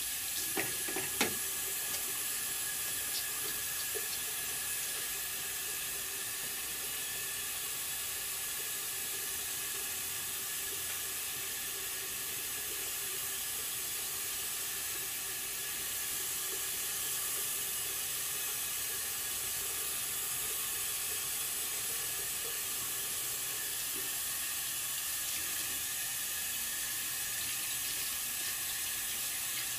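A faucet runs steadily into a sink while hands are washed under the stream. A couple of short knocks sound about a second in.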